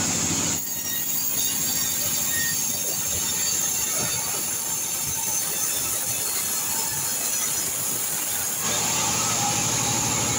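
A T.36 band saw mill running, with a high-pitched whine of the blade cutting kecapi (santol) wood that drops away about half a second in. The machine then runs without cutting, with scattered knocks and rattles as a log is handled on the saw table. The high cutting sound comes back near the end as the log is fed through the blade.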